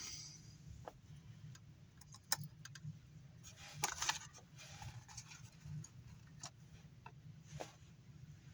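Scattered light clicks and taps of small parts being handled and positioned for soldering, with a small cluster about four seconds in, over a faint steady low hum.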